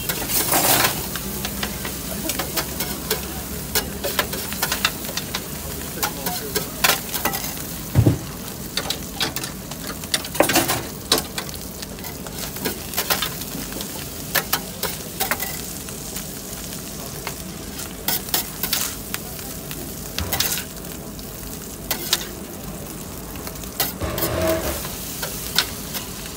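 Chopped kokoreç sizzling on a flat steel griddle, with frequent irregular sharp clacks and scrapes of a metal spatula chopping and turning it.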